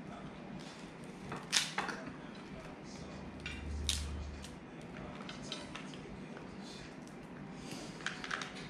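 A few light clicks and clinks of dishes and utensils at a meal, about three sharp ones among softer handling noises.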